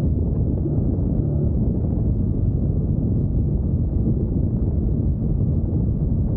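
Wind buffeting the microphone on a moving motorcycle, over the steady drone of a 2021 Yamaha MT-09's three-cylinder engine at cruising speed.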